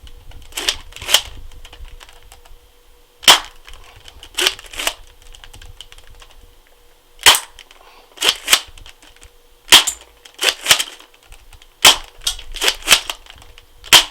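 Spring-powered airsoft pump-action shotgun being cycled and fired over and over: each time two quick plastic clacks of the pump going back and snapping forward, then a sharp spring-piston crack of the shot, five shots in all.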